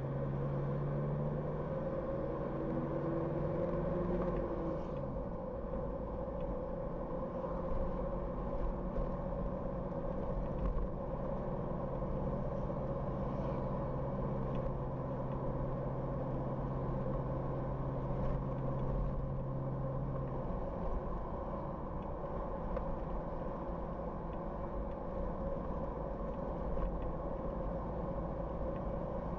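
Car driving along a road: steady engine and tyre noise, with a low hum that stops about two-thirds of the way through.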